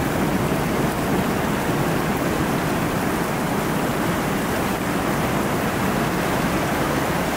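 Steady rain falling, an even hiss with no breaks or drops in level.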